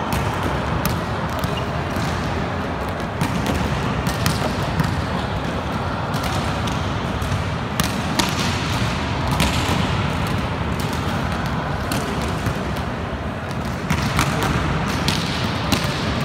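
Volleyballs being struck by forearms and hands and bouncing on a hard sports-hall floor during passing drills: irregular sharp smacks, roughly one a second, over a steady hall background noise.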